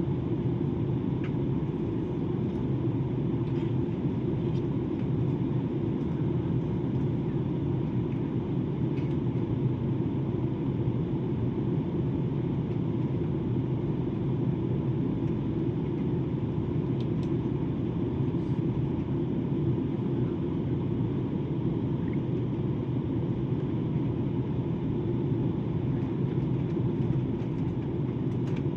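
Steady low drone of an airliner in flight, heard from inside the cabin: engine and airflow noise at an even level, with a few faint ticks.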